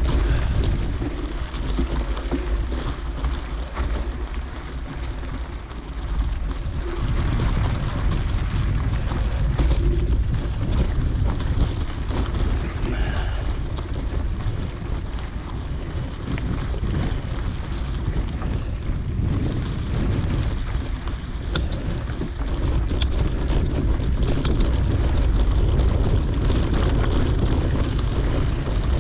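Wind buffeting a GoPro camera's microphone while mountain biking on a dirt trail, a steady low rumble mixed with tyre noise on the dirt. A few sharp clicks or rattles come through in the second half.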